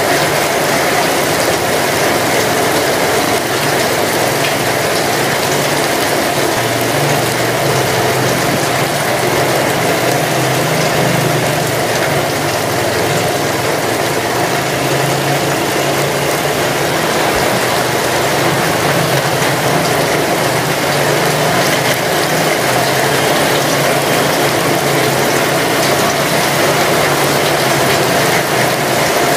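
Steady rain falling: an even hiss of many drops.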